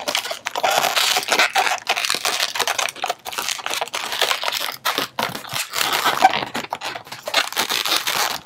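Inflated latex 260 modelling balloons rubbing and squeaking against each other and against the hands as they are handled and twisted: an irregular run of rubbing, crackling and short squeaks.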